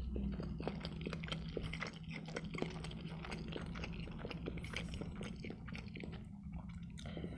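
Close-miked chewing of a mouthful of noodles: a run of soft wet mouth clicks and smacks that thins out about six seconds in, over a low steady hum.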